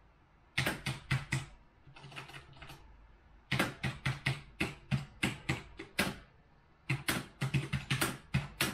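Typing on a backlit computer keyboard: quick runs of keystroke clicks with short pauses between them, starting about half a second in.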